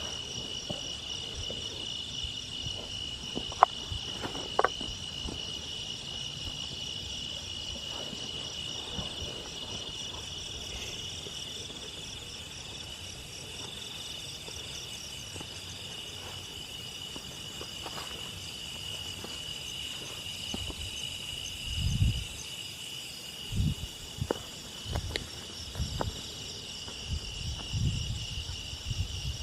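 Night insects, crickets among them, chirring steadily in a high, finely pulsing drone. Two sharp clicks come about four seconds in, and from about two-thirds of the way on there is a series of low thuds.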